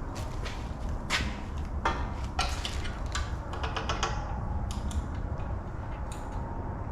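Metal parts and tools being handled and set down during assembly: a scattered series of short clinks and knocks about a second apart, over a steady low hum.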